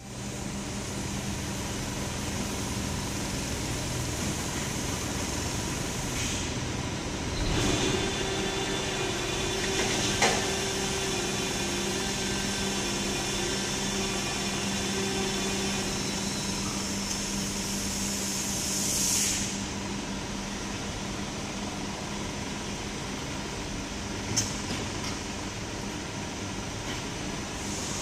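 Steady hum of a large SMC hydraulic press and its hydraulic system in a factory hall. A higher whine joins for several seconds in the first half, a short hiss follows past the middle, and there are two sharp clicks.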